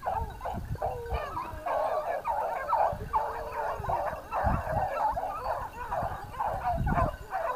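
A pack of hunting dogs baying and yelping: many short, overlapping cries that crowd together and grow denser after the first second or two.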